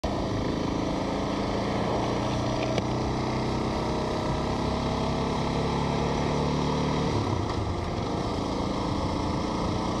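Suzuki DR650's single-cylinder four-stroke engine running steadily under way, with the engine note changing about seven seconds in.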